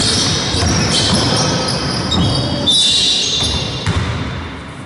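Basketball shoes squeaking in many short, high squeaks on a wooden sports-hall floor, with the ball bouncing and the hall echoing; the court sounds fade near the end.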